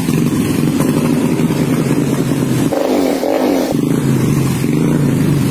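Motor vehicle engine running steadily close to the microphone, its tone changing briefly about three seconds in.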